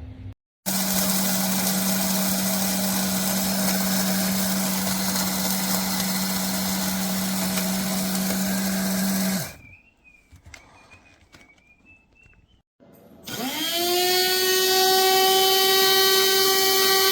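Electric blade coffee grinder running at full speed for about nine seconds, then stopping. After a short quiet pause its motor spins up again near the end and settles into a steady whine.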